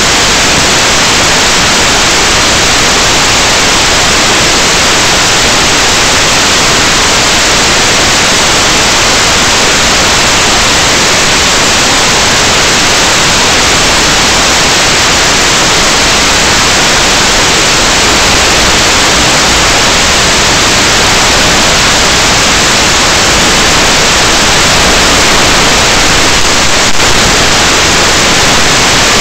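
Loud, steady static hiss from the audio channel of an analog 5.8 GHz FPV video downlink, with a brief crackle near the end.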